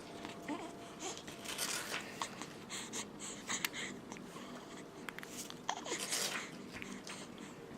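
A newborn baby's breathy little sounds in short bursts, a cluster of them in the middle, with a couple of faint squeaks.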